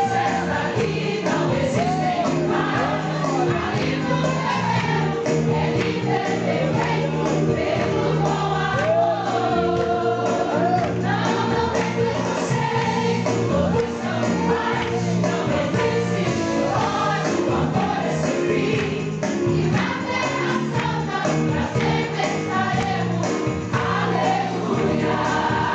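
Gospel song with choir-style singing over a steady band accompaniment.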